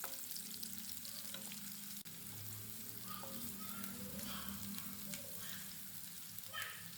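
Chopped onions sizzling faintly in hot oil in a pan, stirred with a spatula that gives a few light scraping clicks.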